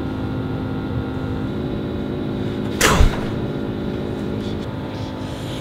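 A single sharp blow struck to a person's face about three seconds in, over a steady low drone.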